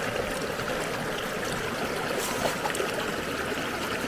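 River water running steadily over rocks, an even rushing noise with no breaks.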